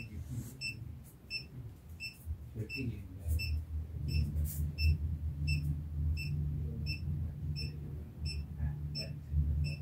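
Long-range 'gold hunter' treasure locator giving a short high-pitched beep about twice a second, evenly spaced, as it searches. A low hum runs underneath, growing stronger about four seconds in.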